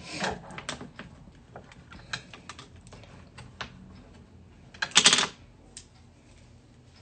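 Hair being brushed and smoothed back close to the microphone: scattered light clicks and scratchy strokes, with one louder rustling sweep about five seconds in.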